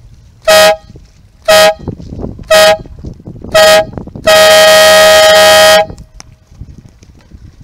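Air horn giving four short blasts one second apart, then one long blast of about a second and a half. This is a sailing race start countdown, with the long blast marking the start.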